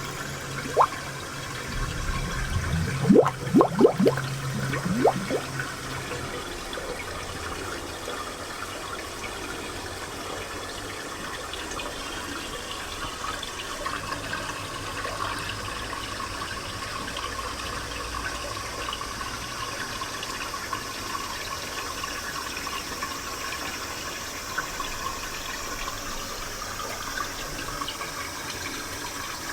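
Spring water running and gurgling steadily with fine bubbling. A few louder gurgles break through in the first five seconds.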